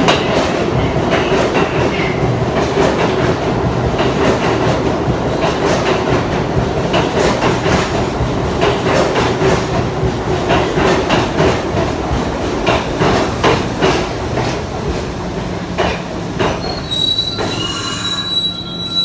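New York City subway train running on the rails: a steady rumble with the wheels clacking over rail joints. Toward the end the clatter eases off, and a high wheel squeal comes in about two seconds before the end.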